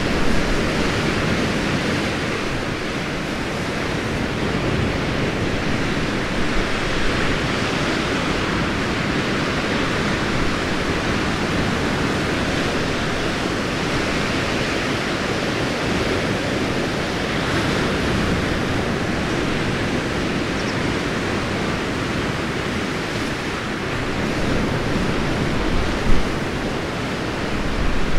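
Steady rushing sea surf with wind, swelling and easing slightly, with one brief louder bump near the end.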